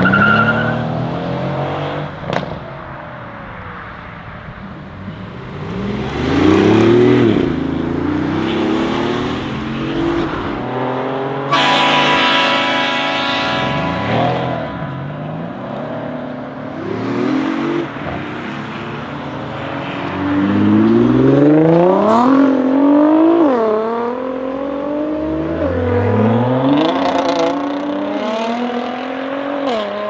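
Brabus 700-tuned Mercedes-AMG C63 S twin-turbo V8 accelerating hard in repeated runs. The engine pitch climbs and drops back at each gear change, with a few sharp exhaust crackles. For a few seconds near the middle it is held at steady high revs.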